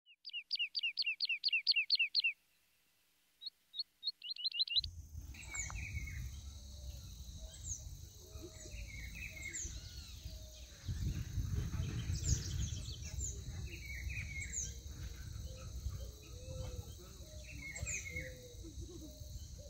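A rapid series of falling chirps, about five a second, over silence, then after a few seconds an open riverbank soundscape: birds chirping repeatedly over a steady high-pitched drone and a low rumble that grows stronger about halfway through.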